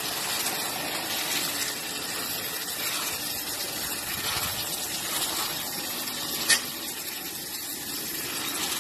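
Running water gushing steadily, starting abruptly, with a single sharp click about six and a half seconds in.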